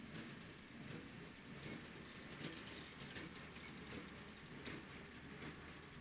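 Faint sound of a farm tractor and small square baler working in a hayfield: a low hum under a haze of irregular crackling ticks.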